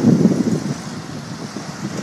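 Gusty wind buffeting the phone's microphone, a low rumble that is loudest at the start and eases off, with road traffic going by.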